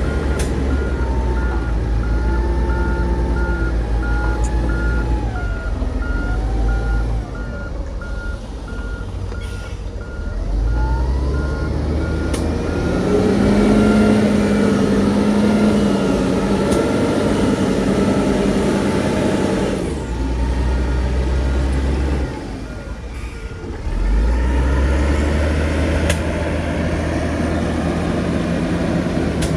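Heavy diesel earthmoving machinery running, its engine pitch rising around the middle as it works under load. A reversing alarm beeps in a rapid even pulse through the first part, stops, and beeps again later.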